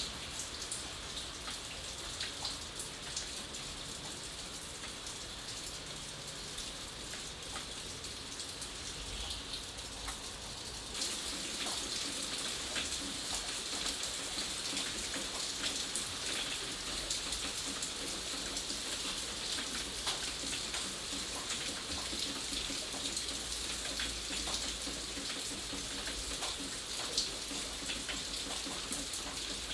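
Steady rainfall, with many individual drops ticking close by over the even hiss of the rain. About eleven seconds in it abruptly gets louder and brighter.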